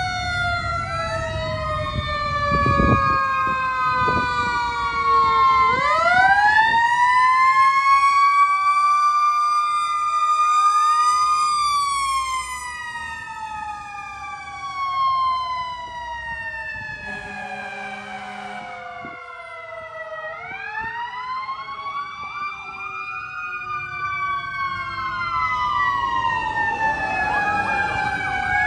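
Fire apparatus sirens: a Federal Q mechanical siren repeatedly spooling up to a peak and slowly winding down, overlapping electronic wail and yelp sirens from the engine and rescue ambulance. A short horn blast comes a little past halfway, and diesel engine rumble is under the sirens at the start and end.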